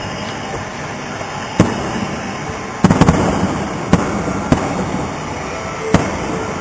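Fireworks shells bursting in the sky: a sharp bang after about a second and a half, a rapid cluster of several bangs near the middle, then single bangs spaced about half a second to a second and a half apart. Between the bangs there is a steady rumbling background noise.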